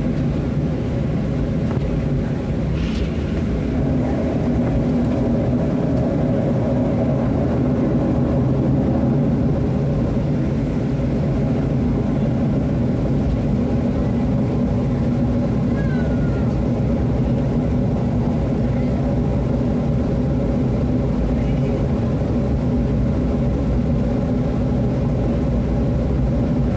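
Cabin noise inside a Boeing 737-700 taxiing, its two CFM56-7B engines at taxi idle: a steady low drone made of several even hums, unchanging throughout.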